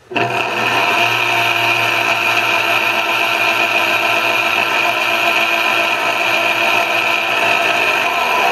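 Vitamix commercial blender (VM0115E) switching on abruptly and running steadily at speed with its container blade assembly fitted. It sounds really rough: the blade assembly's bearings are bad.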